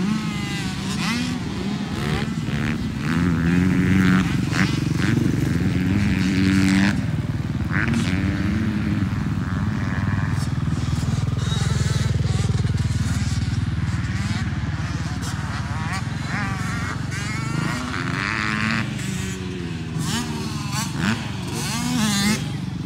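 Small motocross dirt bike engines revving up and down, repeatedly rising and falling in pitch through the gears as the bikes ride the track.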